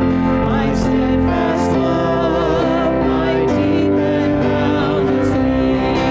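Music: held chords under a wavering melody line.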